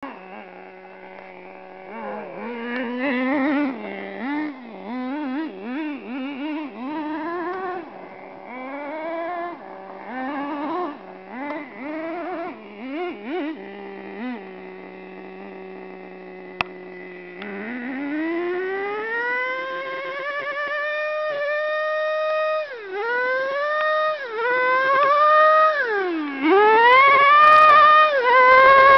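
Traxxas Nitro Stampede RC truck's small two-stroke nitro engine idling, then revving in quick repeated blips. About halfway through it climbs into a long high rev that is held, with several sharp drops and pickups near the end.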